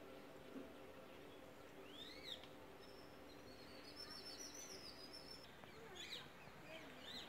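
Faint songbird calls in a quiet garden: a couple of short rising-and-falling chirps about two seconds in and again near the end, with a run of high, thin twittering notes in between, over a faint low hum.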